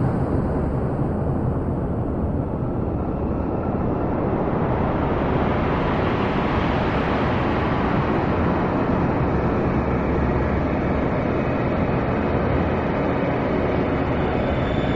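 Experimental electronic noise music: a dense, steady noise drone weighted toward the low end, which grows brighter and more hissy about five seconds in.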